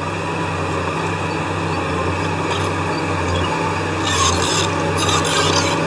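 Diesel engine of heavy earthmoving machinery running steadily with a low hum. Two short high rasping or hissing bursts come about four and five seconds in.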